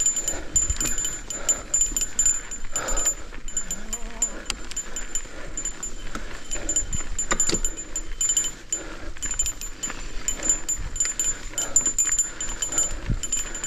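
Mountain bike descending a rough trail: the bike rattles and knocks over bumps, with a thin high tone that keeps cutting in and out and a few short squeaky glides.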